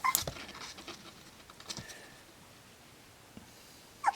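Pembroke Welsh Corgi puppy whimpering softly: a short high whine just after the start and another near the end, with light pattering and soft taps in between.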